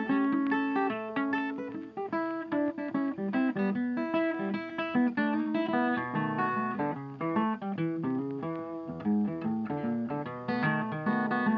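Background music: acoustic guitar playing a quick run of plucked notes and chords.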